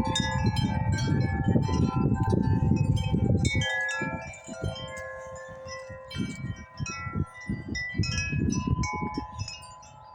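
Several tuned wind chimes ringing together in the wind, many overlapping tones struck over and over. A low wind rumble is heavy for the first few seconds, then comes only in gusts.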